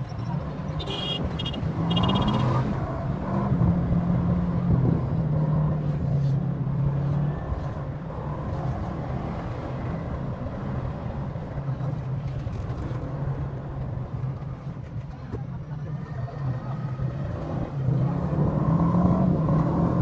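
A motor vehicle's engine running as it drives along the road, its note rising and falling with speed. A few short high beeps sound about a second in.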